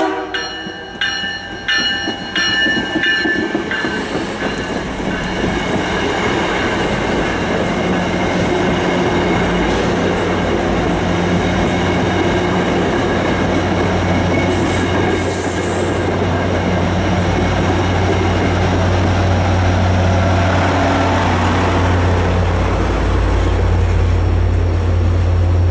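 MBTA commuter train's cab-car horn sounding a quick string of short toots, about two a second, over the first three seconds as the train comes in. Then the loud rumble of the train passing close by on the rails, with a low diesel drone that grows toward the end as the locomotive pushing at the rear comes near.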